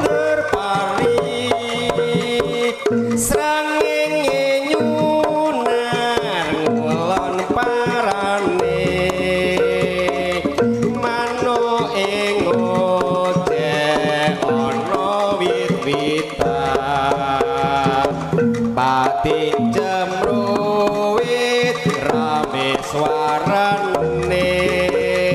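Live Javanese jaranan gamelan music: kendang hand drums beat a driving rhythm under a wavering melody line, with deep gong tones sounding underneath.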